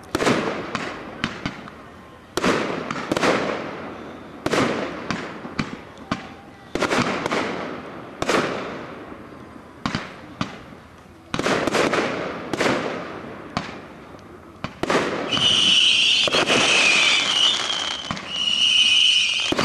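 Fireworks display: aerial shells bursting one after another, sometimes several in quick succession, each bang trailing off in a rolling echo. In the last few seconds a high steady whistle joins the bangs.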